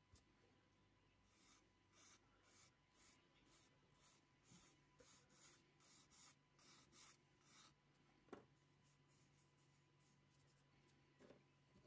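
Faint rasping strokes of a sanding stick rubbed back and forth over the plastic wing and filler of a scale model, about two to three strokes a second, smoothing away a raised seam line. A single small knock about eight seconds in.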